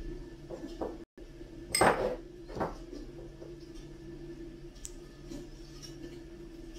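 Basting brush knocking against a small ceramic bowl and a glass baking dish while marinade is brushed onto pork steaks: two sharp clinks about two seconds in, then a few faint taps, over a low steady hum.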